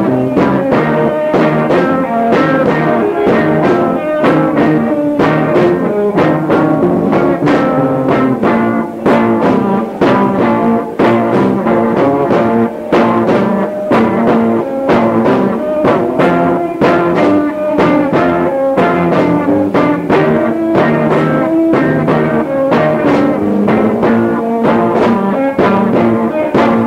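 Live rock band on a lo-fi cassette recording: electric guitar and drums playing with a steady beat, with a dull, muffled tape sound and the vocals barely audible from a weak PA.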